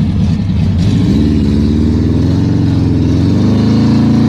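Car engine revving under load: the revs rise about a second in and then hold high, climbing slowly, as the car tries to drive out of deep mud.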